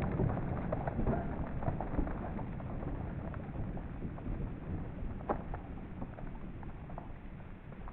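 Aftermath of a heavy rifle bullet striking bricks: grit and brick fragments pattering down as scattered small ticks over a low rumble that fades steadily, with one sharper tick about five seconds in.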